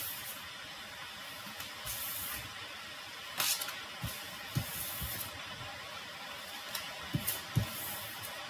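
Fortune-telling cards being shuffled and handled: several short papery swishes and a few soft taps as the cards are laid down.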